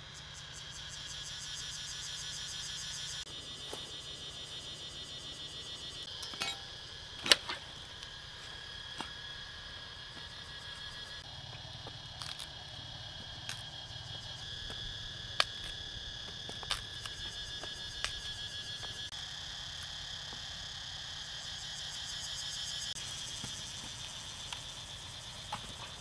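Insects chirring steadily in a high, finely pulsing drone, broken by a few sharp clicks and knocks. The loudest click comes about seven seconds in.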